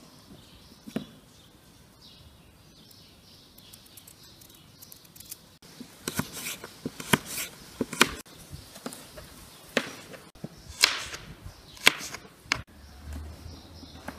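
Kitchen knife cutting raw carrots into strips on a wooden cutting board: irregular sharp knocks of the blade through the carrot onto the board, starting about six seconds in.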